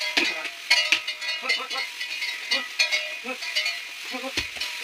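Cattle walking round on a layer of paddy straw, trampling it to thresh out the rice grain: repeated metallic clinking like neck bells, with the straw rustling underfoot.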